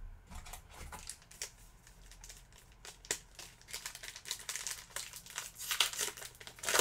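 Plastic trading-card pack wrapper crinkling as it is handled: a run of crackles that grows denser and louder in the second half.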